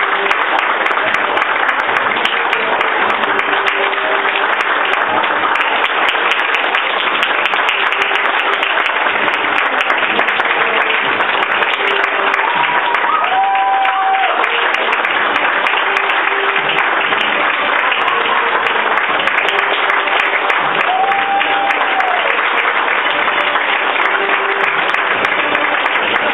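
Audience applauding steadily, with a couple of brief voices calling out over the clapping, one about halfway through and one a little later.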